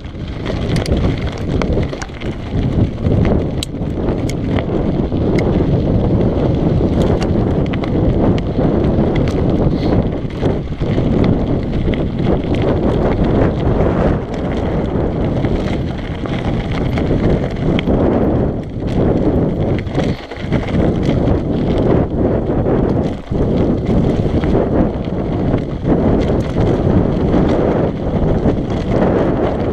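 Mountain bike descending a loose, rocky dirt trail: wind buffets the action camera's microphone over the tyres crunching on gravel and stones, with frequent sharp rattles and knocks as the bike bounces over rocks.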